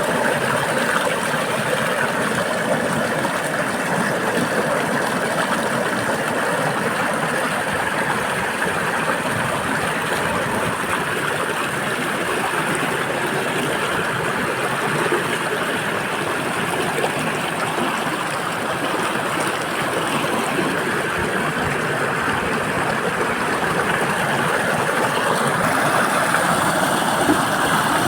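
Waterfall: water pouring and splashing in a steady rush.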